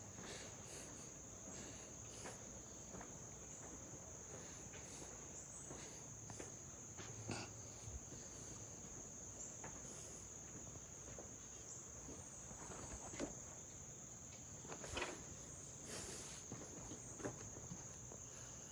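A faint, steady high-pitched chorus of insects, crickets by the sound, trilling without a break. A few soft knocks are scattered through it, the loudest about 13 s and 15 s in.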